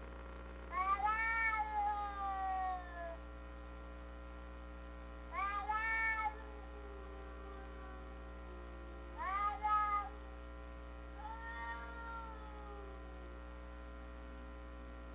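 A cat meowing four times, the first call long and falling away in pitch, the last one fainter, over a steady electrical hum.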